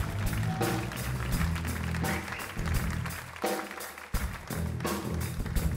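Live blues band playing an instrumental passage: electric guitar over a drum kit keeping a steady beat. A little past halfway the low end drops out for about half a second, then the band comes back in with a hit.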